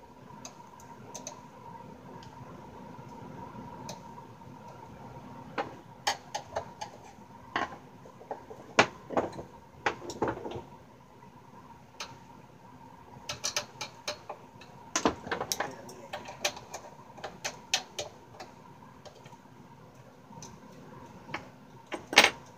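Scattered sharp clicks and metallic clinks of small screws and hand tools being handled and set down on a wooden workbench and against the amplifier's case during disassembly, starting several seconds in, with the loudest clatter near the end. A faint steady hum runs underneath.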